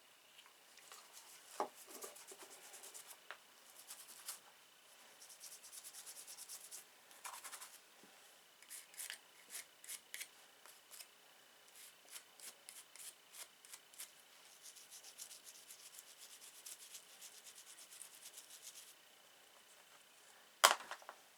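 Scrubbing and rubbing on a small Zippo pocketknife blade to clean off grime. The strokes are scratchy and come in bursts and in rhythmic runs of about two a second, with stretches of steadier scrubbing. A sharp knock near the end is the loudest sound.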